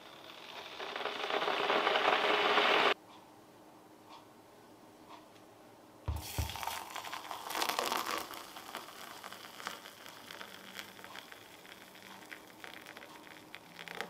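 Electric kettle heating water, a rising rush that cuts off abruptly about three seconds in. After a few quiet seconds a short knock, then hot water poured from the kettle into a ceramic mug onto instant coffee, splashing and crackling as the foam rises, slowly tapering off.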